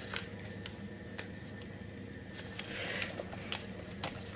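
A knife working at a sealed plastic smoked-salmon packet: scattered small clicks and scrapes, with a brief scratchy rasp about three seconds in.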